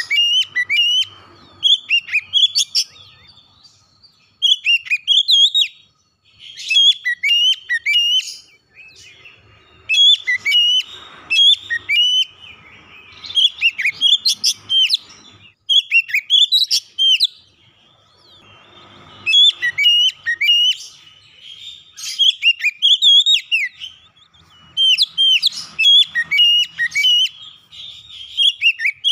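Caged Oriental magpie-robin (kacer) singing in full song: phrase after phrase of sweet, sliding whistles and quick chirps, each phrase a second or two long, with short pauses between.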